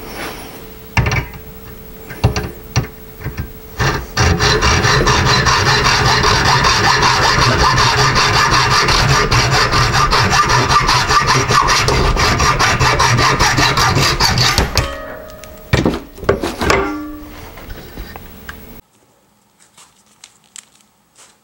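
Hacksaw cutting through aluminium C-channel clamped in a bench vise: about ten seconds of steady, fast back-and-forth sawing strokes. A few sharp knocks come before the sawing starts and a few clanks follow it.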